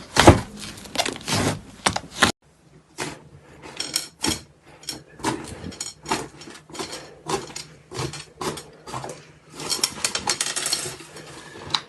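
Slime being squished and worked, making a fast, irregular run of short wet clicks and pops, with an abrupt break about two seconds in.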